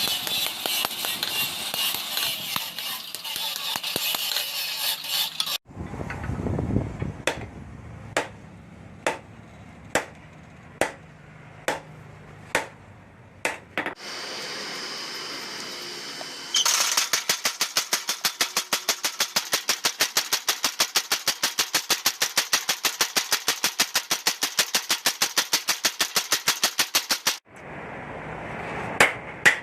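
Hammer blows on hot steel during knife forging: first a steady hissing noise, then single sharp strikes about once a second, then a long fast run of evenly spaced blows about four a second, and a few more strikes near the end.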